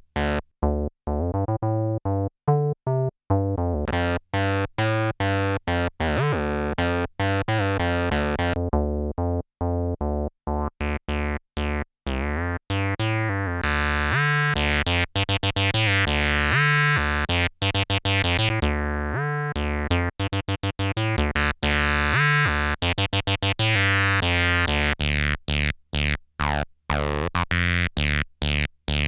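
Behringer TD-3 bass synthesizer playing a sequenced acid bassline through its built-in distortion: short, squelchy, resonant notes in a fast rhythm. The filter opens into a brighter, buzzier tone about midway, closes again, and opens once more near the end.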